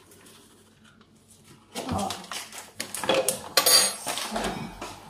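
Kitchenware being handled: after a quiet start, metal pots and utensils clatter and clink from about two seconds in, with one bright metallic ring about halfway through.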